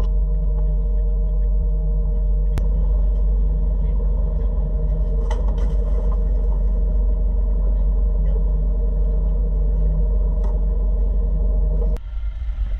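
The boat's Volvo Penta engine running steadily underway, a deep, even drone, with a few light knocks from work on deck. The drone cuts off near the end.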